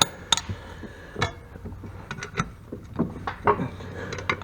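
Irregular sharp metal clicks and knocks from a socket wrench working the blade bolt loose on a riding lawnmower's blade, over a low steady hum.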